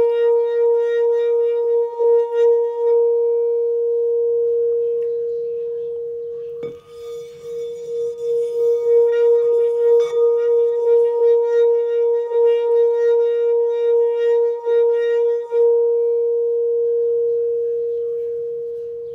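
Amethyst crystal singing bowl filled with water, sounding a sustained ringing tone with a pulsing wobble in loudness. About seven seconds in there is a single knock, and the bowl goes on ringing. Near the end the brighter overtones drop away and the tone fades out.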